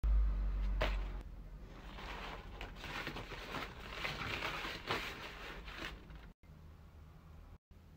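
Crumpled honeycomb kraft paper wrapping crackling and rustling as it is pulled open from around a frying pan, with a dull low thump at the start.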